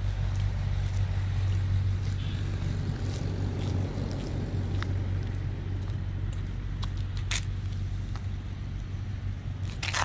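Steady low background rumble with a few faint clicks, a small cluster of them near the end.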